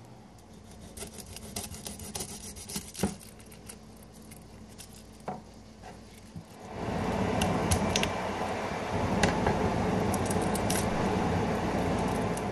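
Garlic cloves being peeled by hand, the papery skins crackling in scattered small clicks. About seven seconds in, a much louder, steady rustling with crackles takes over.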